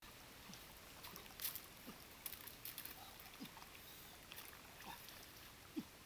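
Faint trickle and gurgle of a shallow stream, with scattered light clicks and taps and a few short water plops.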